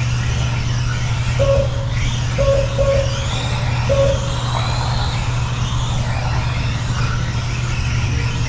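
Small electric motors of Kyosho Mini-Z RC race trucks whining, rising and falling in pitch as the cars accelerate and brake round the track, over a steady low hum. A few short beeps sound in the first half.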